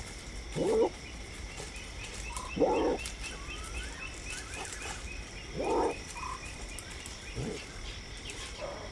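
A nocturnal mongoose calling, which the recordist takes for a white-tailed mongoose: four short, noisy calls one to three seconds apart, the last one fainter. Behind them are a steady high hum and, midway, a quick run of faint pips.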